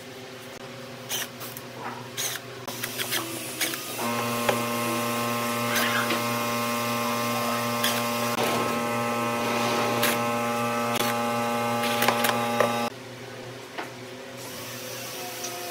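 Cordless impact driver running steadily for about nine seconds, winding the worm screw of a hose clamp tight, then stopping abruptly. Before and after it there are light clicks and metallic rattles of the clamp band being handled.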